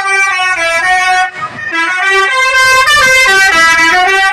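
Bus telolet musical air horn playing a quick melody of short notes that change pitch several times a second, with a brief break about a second and a half in.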